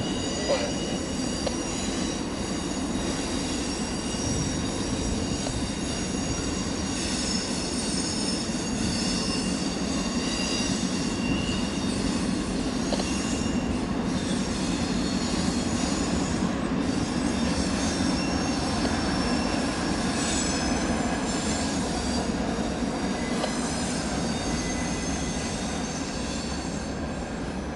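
CSX intermodal freight cars rolling across a stone arch viaduct: a steady, dense rumble of wheels on rail with high, sustained wheel squeal over it. The sound eases slightly near the end as the last cars pass.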